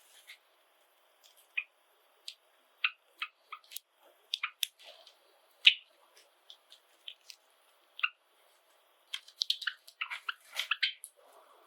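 Java sparrows giving short, sharp chirps and clicks, scattered at first and coming thick and fast near the end.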